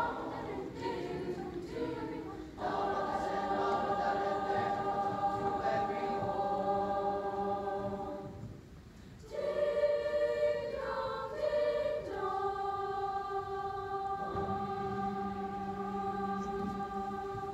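Children's school choir singing long held chords, with a brief break about nine seconds in, then a final long sustained chord that stops near the end.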